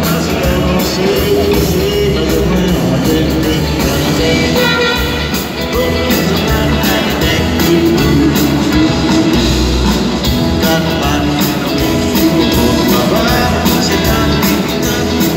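Male singer with a live band performing an upbeat rock-and-roll song in concert.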